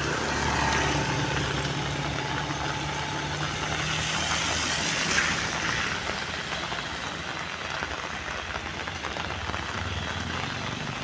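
Steady heavy rain with a motor vehicle's engine running at low speed under it.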